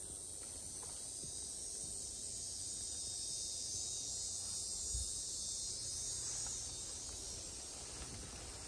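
Steady high-pitched insect chorus in the woods, with a low rumble underneath and a soft bump about five seconds in.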